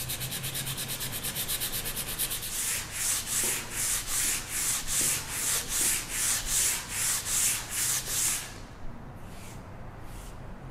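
Coarse 80-grit sandpaper rubbed by hand along a wooden stool leg: rapid short strokes at first, then from about two and a half seconds in slower, louder strokes about two and a half a second, stopping about eight and a half seconds in.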